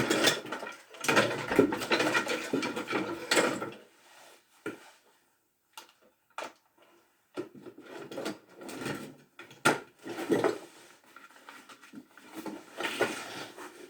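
Handling noise from a hand-held power tool: knocks, clicks and rattling as it is picked up and set up, with the motor not running. Dense rattling for the first few seconds, then scattered clicks and knocks.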